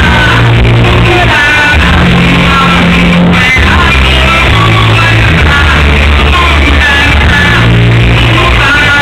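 Loud amplified music with a singer over a bass line that steps between held notes, with shouts.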